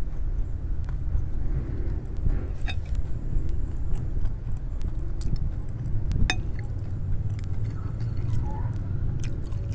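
A metal spoon and fork clinking and scraping against a glass plate in scattered sharp ticks, over a steady low hum.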